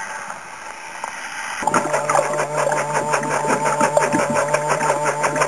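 Kawasaki jet ski engine heard through a camera held underwater: first a muffled, watery hiss, then about a second and a half in a steady engine drone with a fast pulsing comes in sharply and runs on.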